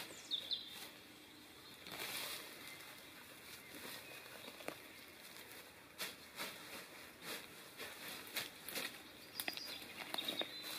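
Hands scraping and clearing dry leaves, twigs and forest-floor litter: irregular rustling with scattered small crackles and snaps.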